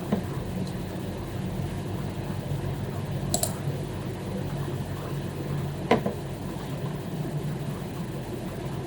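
A pause in typing: two single computer mouse clicks, one about a third of the way in and a sharper one about two-thirds in, over a steady low hum.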